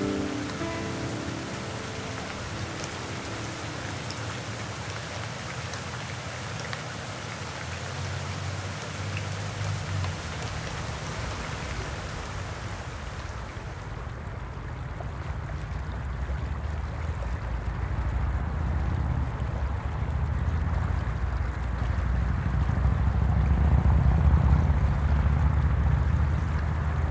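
Steady hiss of rain falling on water, with scattered drop ticks. About halfway through the hiss gives way to a deeper rushing of water that swells toward the end.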